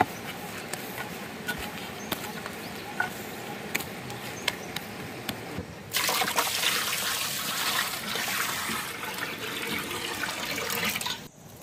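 Water pouring from a steel vessel into a large metal pot and splashing onto the sticks and stones laid in its bottom. The pour is a steady splashing that starts about halfway through and stops abruptly near the end. Before it there are only soft clicks of hands working rice-flour dough in a steel plate.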